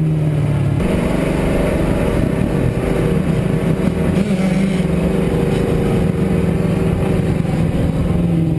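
A motor vehicle engine running under steady load, its drone stepping up in pitch about a second in and then holding.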